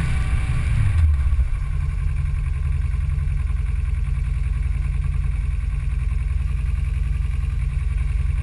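Off-road vehicle's engine idling with a steady low rumble, a little louder in the first second before settling.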